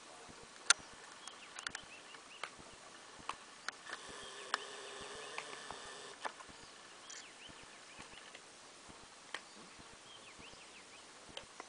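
Leopard tugging and tearing at an impala carcass wedged in a tree fork: irregular sharp clicks and snaps, one much louder about a second in. Faint bird chirps behind, and a faint steady tone for a couple of seconds in the middle.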